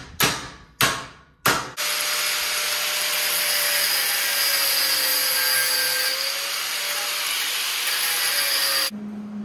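Hammer blows on a clamped 3/16-inch steel flat bar, four sharp ringing strikes in the first second and a half as the bar is bent. Then a corded angle grinder grinds steel steadily for about seven seconds and cuts off near the end.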